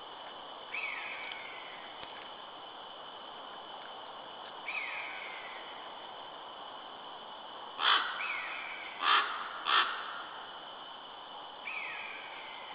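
Harsh bird calls, three loud ones in quick succession about eight to ten seconds in. Between them, fainter falling call notes come every three to four seconds, over a steady high whine.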